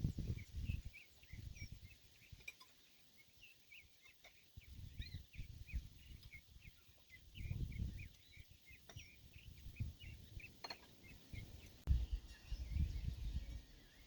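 Birds chirping over and over in short calls, with gusts of wind rumbling on the microphone.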